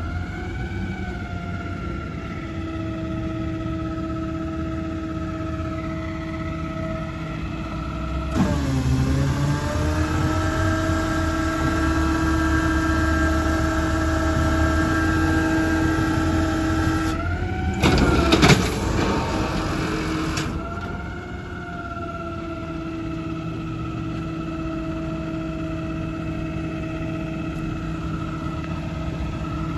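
Automated side-loader garbage truck running with a steady whine. About eight seconds in the pitch dips, and the engine speeds up and runs louder for some nine seconds, with a couple of loud clatters around eighteen seconds in. Then it drops back to idle.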